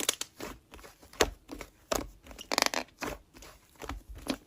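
Slime being squished and poked by hand, making an irregular run of crunchy clicks and pops, with a denser crackling stretch about two and a half seconds in.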